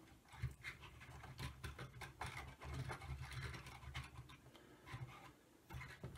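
Faint clicks, ticks and scrapes of 3D-printed plastic parts being handled and pushed together by hand while a wave toy is assembled.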